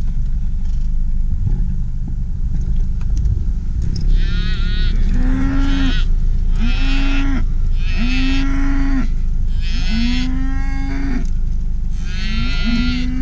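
Cattle mooing, a series of about six long calls starting about four seconds in, over the low steady rumble of the vehicle.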